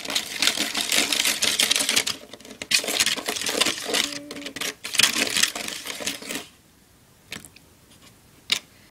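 Small plastic spoon stirring fast in a plastic candy-kit tray, a dense run of rapid scraping clicks against the plastic as the soda powder is mixed into water. It stops after about six and a half seconds, leaving a couple of single taps.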